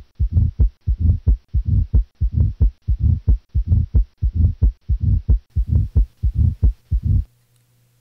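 Heartbeat recorded by stethoscope at the cardiac apex: a fast run of beats with a uniform, low-pitched diastolic rumble between them, the murmur of mitral stenosis. The beats stop shortly before the end.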